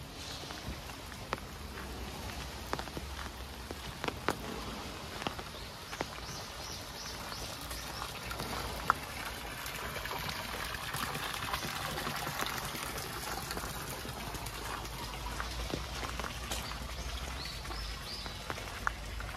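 Light rain pattering and dripping, with single drops ticking sharply on surfaces now and then. Water trickles a little louder in the middle, and a short run of high chirps comes twice.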